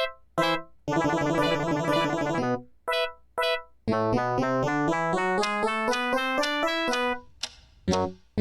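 Keyboard music in a piano-like tone. It starts with a few short, separate chords, then plays a fast run of notes, then a pattern that climbs steadily in pitch over about three seconds.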